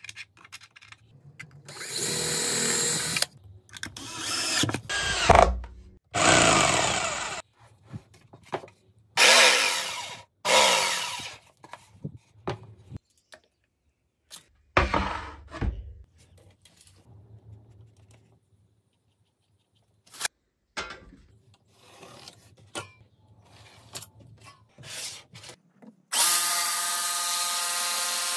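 Short bursts of an electric power tool, the motor speeding up and slowing down, each lasting a second or two with quiet gaps between. Near the end a DeWalt jigsaw starts and runs steadily, cutting through a pine board.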